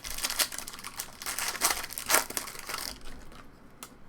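Plastic-foil trading-card pack wrapper crinkling and tearing as it is ripped open, a dense crackle for about three seconds that then stops.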